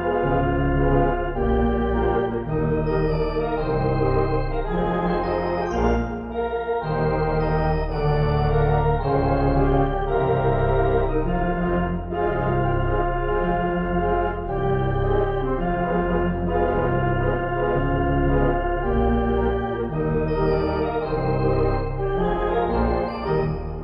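Sampled Barton theatre organ, sounded through Grand Orgue software and played from a two-manual keyboard: sustained chords under a melody, with a bass line that moves every second or so.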